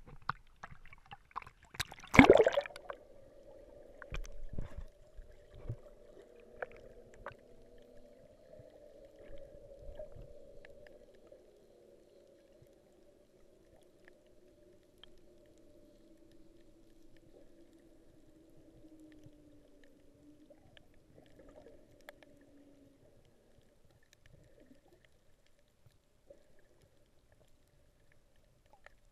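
A splash as the action camera plunges underwater about two seconds in, then faint underwater ambience: a steady hum with a lower drone that slowly wavers and fades out.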